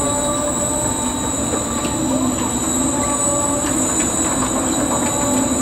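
Zamperla Air Raid spinning and flipping flat ride running: its machinery gives off a steady whine of several tones over a continuous rushing noise.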